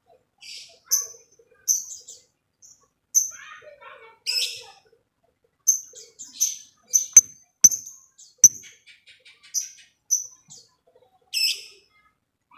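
Lovebird giving short, sharp, high-pitched chirps one after another at irregular intervals. A few sharp clicks come near the middle, followed by a quick run of ticking notes.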